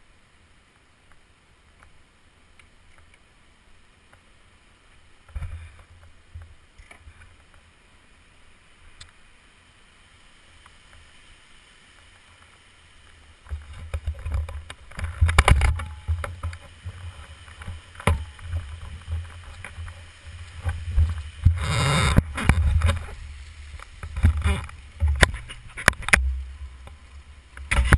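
Wind buffeting the camera's microphone with rustling and knocks from the camera being handled: faint at first with a single knock about five seconds in, then loud, uneven rumbling gusts with crackles from about halfway.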